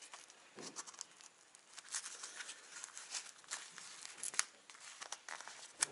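Hands handling a helmet speaker, its foam ear pad and thin wires: faint, irregular rustling with scattered light clicks and scrapes.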